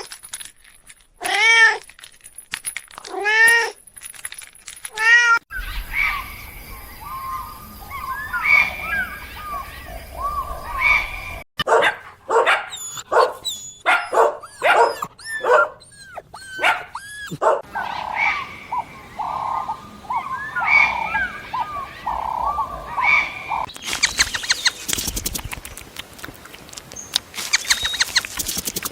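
Cats and kittens meowing over several short clips: single meows about two seconds apart at first, then many overlapping high-pitched mews, and a noisy stretch with quick clicks near the end.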